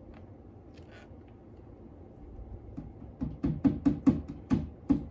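Hammer tapping a part into a particleboard furniture panel, a fast run of sharp taps at about five a second that starts about three seconds in and grows louder.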